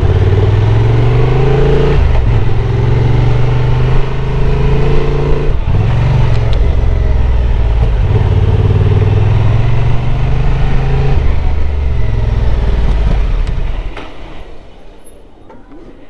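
Honda Transalp 750's parallel-twin engine running at low speed, its pitch stepping down and up several times with throttle and gear changes. About two seconds before the end the engine sound drops away sharply as the bike slows to a stop.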